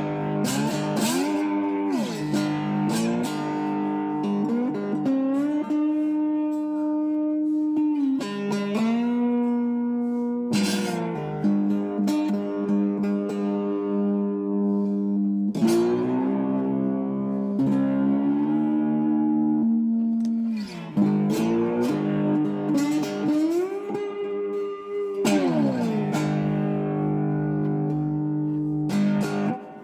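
Electric cigar box guitar played through its single-coil pickup, ringing chords that slide up and down in pitch, with new strums every few seconds.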